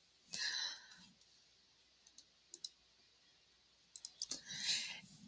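Faint computer mouse clicks: a pair about two and a half seconds in and a few more around four seconds in, with two soft rustling sounds, one just after the start and one near the end.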